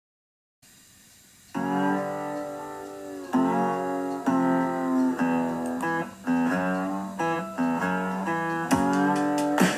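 Background music: guitar chords, sounding about a second and a half in after a moment of silence and changing roughly once a second, with sharp percussive hits joining near the end.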